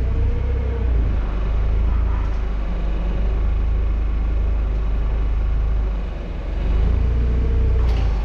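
Vehicle engine running with a steady low rumble, dipping slightly about six seconds in.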